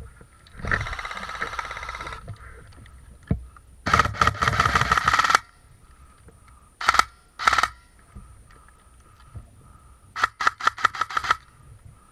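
Airsoft gun fire in bursts: a long rattling burst about a second in, another about four seconds in, two short bursts around seven seconds, and a quick string of about eight shots near the end.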